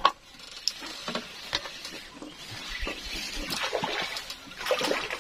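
Water splashing and sloshing, with scattered irregular small clicks and ticks.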